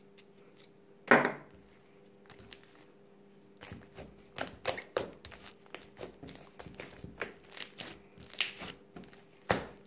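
Slime being worked by hand: a single knock about a second in, then from about four seconds in a run of irregular crinkling clicks and pops.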